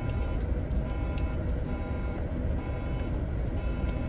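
A bus's engine and road rumble heard from inside the moving bus. A few faint steady tones sound over it, along with occasional light rattles.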